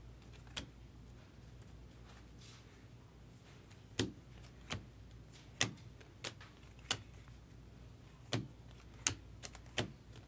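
Stiff chrome trading cards being moved one by one through a hand-held stack, each card giving a short sharp click. There is one click near the start, then a run of about a dozen from about four seconds in, roughly one every half second to second, over a low steady hum.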